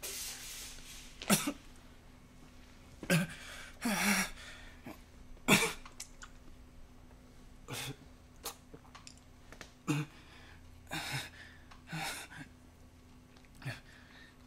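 A man coughing and choking in about ten short, irregular spasms, with blood filling his mouth.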